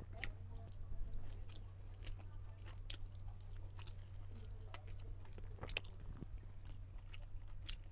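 A person chewing and eating a meal of rice, fried fish and dal, with irregular small mouth clicks and smacks, over a steady low hum.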